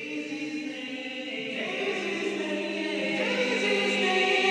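Opening of a song: sustained, choir-like chords that change every second or so and swell steadily louder.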